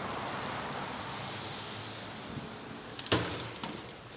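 Steady noise of a rainstorm, rain and wind, slowly easing, with a single sharp knock about three seconds in.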